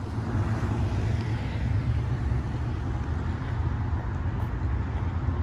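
City street traffic: a steady low rumble of passing cars.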